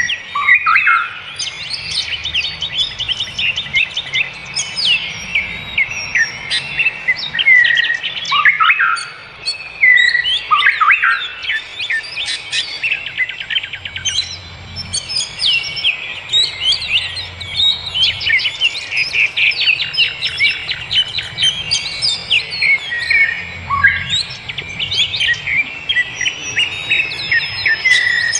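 Several birds singing and chirping together in a forest chorus: overlapping trills, rapid chirps and repeated downward-sliding whistles, continuous and busy.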